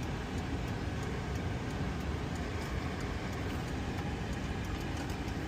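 Steady low rumble with a faint hiss and no distinct events.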